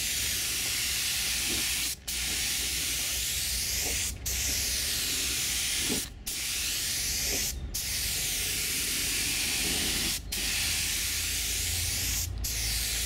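Compressed air hissing steadily from a small gravity-feed spray gun laying paint on a car fender, broken by short gaps about every two seconds.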